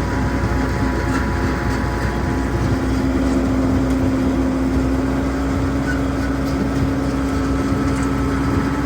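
Engine driving a Haybuster tub grinder, idling steadily with a constant hum while its hydraulic oil warms up; the tub is shut off, so nothing is being ground.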